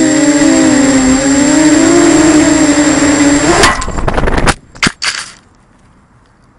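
FPV quadcopter's electric motors and propellers whining as recorded on board, the pitch wavering with the throttle. About three and a half seconds in it crashes into a goal frame: a burst of clattering knocks, the motors cut out, a couple more knocks as it tumbles, then only a faint hiss.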